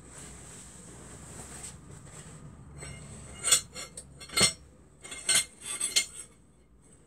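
Metal bike handlebars being picked up and knocked against each other and other metal: a few seconds of rustling handling, then about five sharp ringing clinks in the second half.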